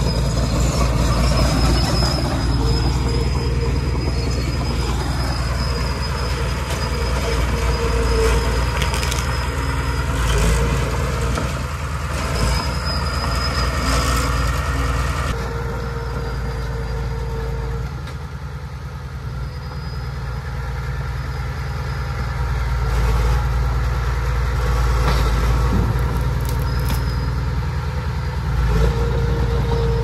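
Small crawler bulldozer's diesel engine running steadily as the machine travels and pushes brush, with short high squeals from its steel tracks coming and going.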